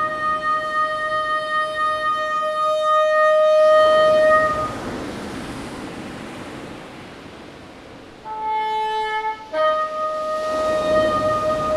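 Solo bassoon holding a long high note that swells and stops about four and a half seconds in. In the gap, the wash of surf on the shore. Then a short lower note, and the high note returns about two seconds before the end.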